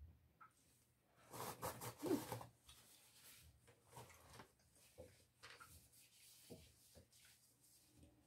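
Faint eating sounds: chewing and the soft scrape and click of fingers gathering rice on plates, with a louder patch of mouth noise around two seconds in.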